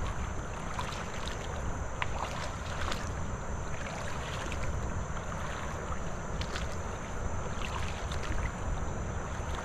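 Steady wind rumble on the microphone over river water sloshing around a wader's legs, with small splashes and clicks now and then.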